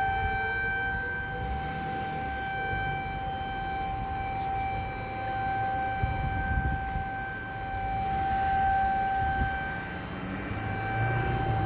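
A Federal Signal 2001 DC outdoor warning siren held at one steady pitch during a test, its loudness slowly swelling and fading. Fainter T-128 sirens sound in the background.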